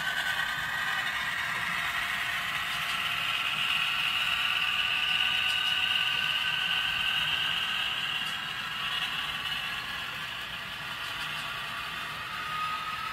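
Model diesel locomotive's electric motor and gears whining as it runs past, with the wheels of the double-stack container cars clattering along the track. The whine is loudest about halfway through and eases toward the end.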